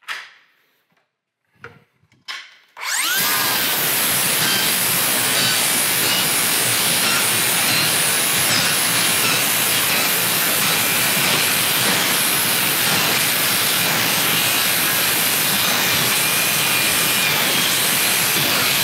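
Cordless DeWalt circular saw with a Crescent NailSlicer carbide-tipped blade starting up about three seconds in, after a few faint clicks, then cutting steadily and loudly through a board full of embedded nails, wood and nails together.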